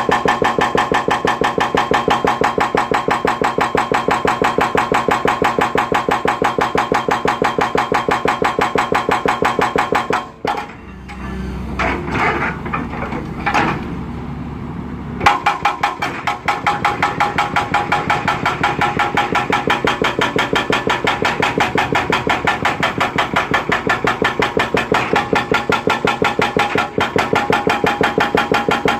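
Hydraulic breaker (demolition hammer) pounding concrete in rapid, even blows, several a second. It stops for about five seconds near the middle, leaving an engine running and a few irregular knocks, then starts hammering again.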